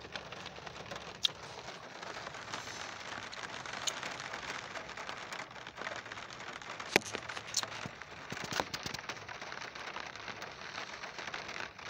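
Steady heavy rain falling on a car, heard from inside, with single heavier drops ticking sharply now and then; the sharpest tick comes about seven seconds in.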